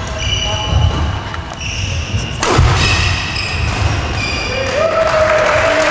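Badminton doubles rally on a wooden indoor court: sneakers squeak in short, high chirps and feet thud on the floor, with one sharp racket hit on the shuttle about two and a half seconds in. A long shout starts near the end.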